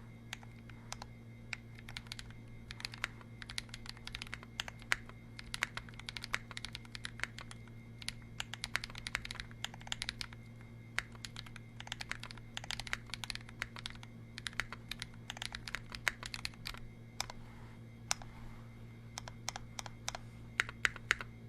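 Typing on a 60% custom mechanical keyboard with Holy Panda tactile switches, in an aluminium case with a brass weight and an aluminium top-mount plate: a steady, uneven stream of keystroke clacks.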